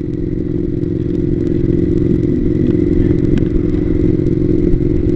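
Triumph America motorcycle's air-cooled parallel-twin engine running steadily at cruising speed, heard from a helmet-mounted camera; the drone grows slightly louder over the first couple of seconds.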